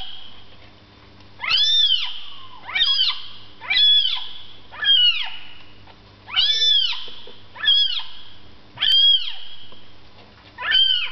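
A cat in a plastic pet carrier meowing over and over: about eight loud meows, each rising then falling in pitch, coming roughly every second or so.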